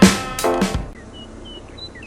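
Keyboard music with struck chords ends under a second in, giving way to outdoor background noise with a few brief, high bird chirps.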